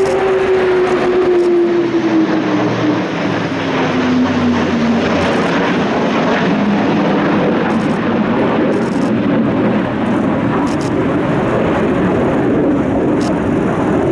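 Airbus A400M turboprop transport and two Panavia Tornado jets flying past in refuelling formation: a loud, steady aircraft roar. A clear tone in it falls in pitch over the first five seconds as they pass.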